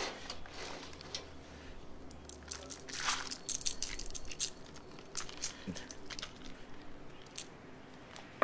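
Coarse black pepper sprinkled from a small metal scoop onto meat and banana leaves, heard as scattered, irregular light ticks and rustles, together with the crinkle of banana leaves being handled.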